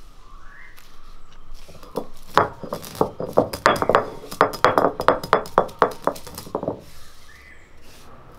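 Black peppercorns being crushed under a stone roller on a flat grinding stone: a quick, dense run of sharp cracking clicks and stone-on-stone knocks, starting about two seconds in and stopping a second or so before the end.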